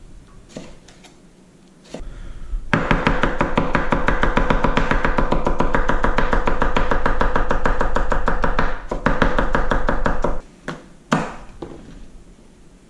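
Knife chopping vegetables on a cutting board: a fast, even run of strokes that starts about three seconds in and stops about ten seconds in, with a few single knocks before and after.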